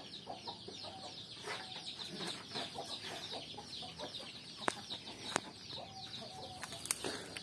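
Chickens clucking and chirping faintly, in many short falling high calls, with two sharp clicks in the second half.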